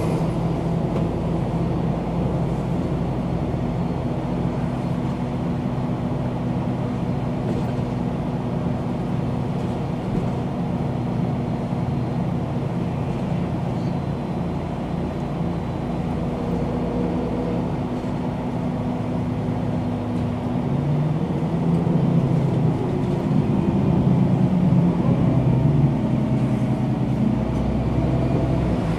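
Diesel engine of a MAN NG 313 articulated city bus running steadily, then working harder and louder for several seconds about three quarters of the way through.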